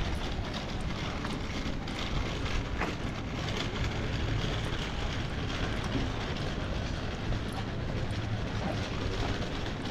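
City street ambience: a steady low rumble with scattered light clicks and taps.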